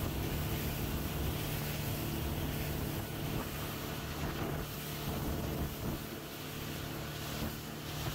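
Motorboat engine running steadily while the boat is under way, a constant hum under a rushing wash of wind and water.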